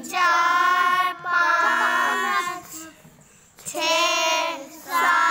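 Children's voices counting aloud in a drawn-out, sing-song chant, each word held for about a second, with a short break about three seconds in.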